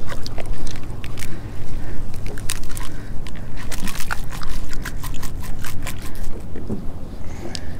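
Water splashing and lapping against the side of a fishing boat over a steady low rumble. Many small clicks and taps are scattered through it, thickest in the middle.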